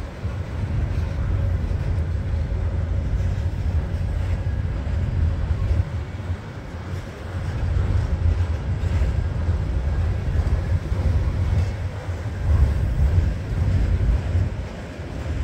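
Freight cars of a long, heavily loaded Canadian National train, boxcars and autorack cars, rolling past on the rails: a steady low rumble that swells and eases as the cars go by.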